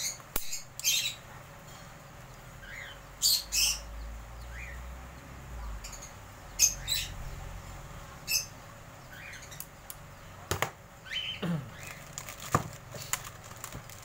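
Small parrots squawking and chirping in short, sharp, high calls, a few at a time at irregular intervals, with a couple of sharp clicks near the end.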